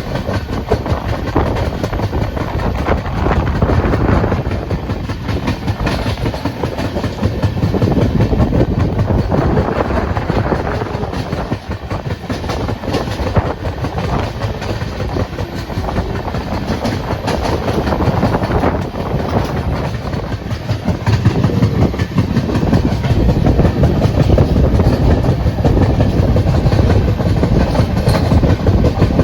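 Moving train running: a steady, loud rumble with a rattling clatter that swells and eases over several seconds.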